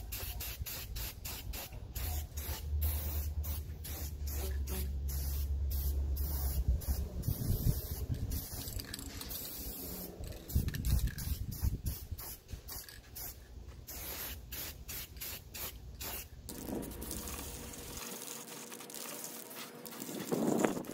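Aerosol spray can of primer hissing in many short, repeated bursts as it is sprayed onto a steel mount. Wind rumbles on the microphone underneath, strongest in the first half.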